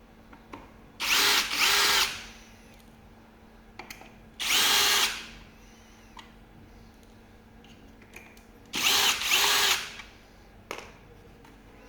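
Electric drill-driver whining in short bursts: two quick runs about a second in, one in the middle, and two more near the end, each under a second long, with small clicks between. These are typical of backing out the screws that hold a rear fender.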